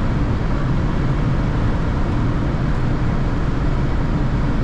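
Inside the cabin of a 1988 Mercedes 260E W124 running flat out at about 206 km/h: a steady roar of wind and road noise over the constant hum of its 2.6-litre straight-six near the top of its speed range.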